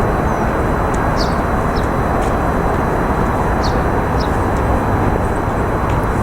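Short, high, downward-sliding bird chirps, in two pairs about half a second apart, over a loud, steady outdoor background noise.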